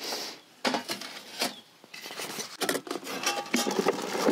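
Scraping and rubbing with light clinks, like cooking utensils and cookware being handled, in a few separate bursts.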